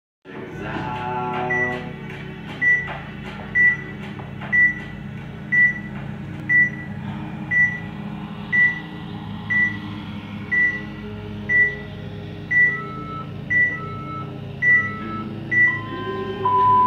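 Electronic workout timer counting down to the start of a workout: about fifteen short high beeps, one a second. The last three are paired with a lower tone, and a long lower beep sounds about sixteen seconds in to mark the start, over a steady low hum.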